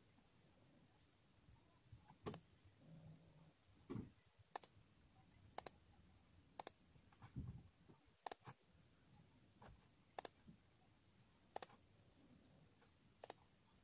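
Near silence in a small room, broken by faint, sharp clicks about once every second or so, with two soft low thumps a few seconds in.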